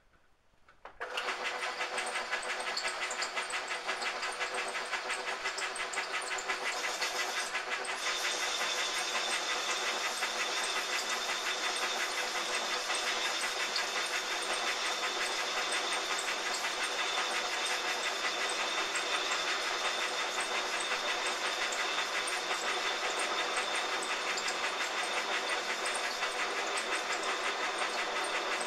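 Metal lathe switching on about a second in and then running steadily, a fast, even clatter, while its tool faces off a metal wheel hub held in a four-jaw chuck. A steady high whine joins about eight seconds in.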